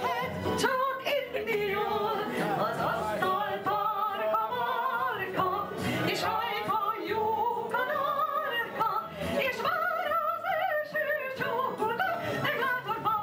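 A woman singing through a handheld microphone, her held notes wavering with vibrato.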